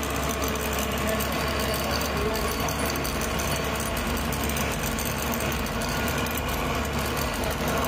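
Vehicle engine running, heard from inside the cab while driving: a steady low drone with road and cabin noise.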